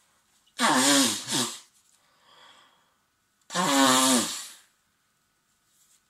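Two loud sneezes from a person with a head cold, about three seconds apart; the first breaks off into a short second burst. A faint breath comes between them.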